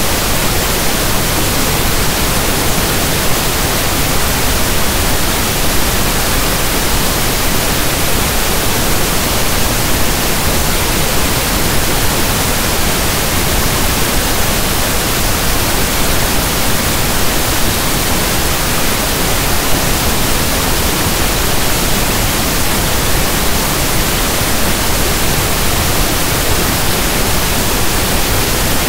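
Steady synthesized pink noise: an even, unbroken hiss like the static of a radio not tuned to a station, with no change in level or tone.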